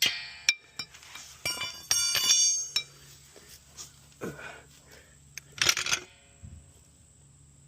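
Steel floor jack and its handle clanking: a sharp ringing clink at the start, a run of clinks and clanks a second and a half in, softer knocks, and one more ringing clank about six seconds in.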